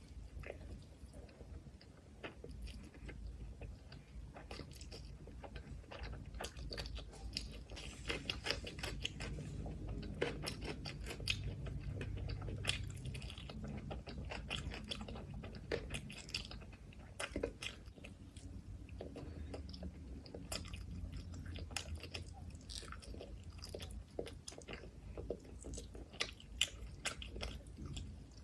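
Close-miked chewing and biting of mutton liver curry and rice, eaten by hand, with many short, wet mouth clicks throughout.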